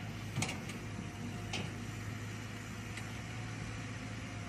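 Caterpillar 312C hydraulic excavator's diesel engine running steadily under load while it digs mud, with a few sharp short knocks about half a second, one and a half and three seconds in.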